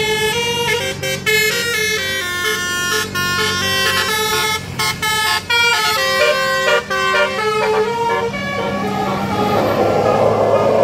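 Basuri-type 'telolet' multi-tone bus air horn playing a tune of short stepped notes for about eight seconds. A louder noisy rush without notes takes over near the end.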